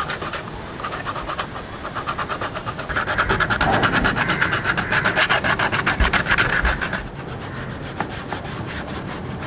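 Sandpaper rubbed back and forth by hand over a cured epoxy-putty (M-seal) patch on a cracked plastic car bumper, in fast, even strokes several times a second, levelling the patch. The strokes are loudest in the middle, and near the end they give way to softer wiping with a cloth.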